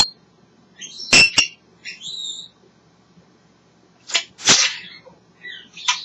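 African grey parrot vocalizing in short separate bursts: sharp clicks and pops, brief whistles, and a harsh rasping call about four and a half seconds in.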